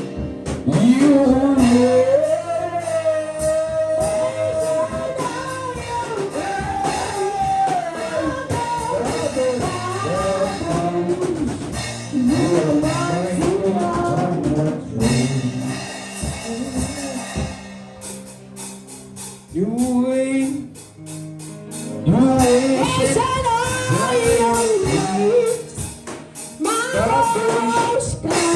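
Gospel worship song: a voice singing long melodic lines over instrumental backing, with a brief drop in the music about two-thirds of the way through.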